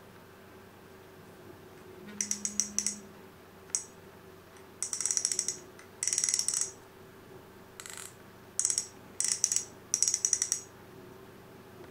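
Shimano Nasci 1000S spinning reel's drag clicking in eight short bursts of rapid clicks as the spool is turned by hand.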